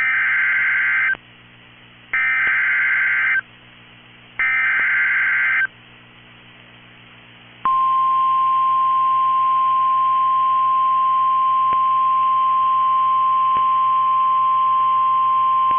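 NOAA Weather Radio EAS/SAME alert: three short bursts of warbling digital data tones about a second apart, carrying the coded Flash Flood Warning header, then about eight seconds in the steady single-pitch 1050 Hz weather radio warning alarm tone starts and holds.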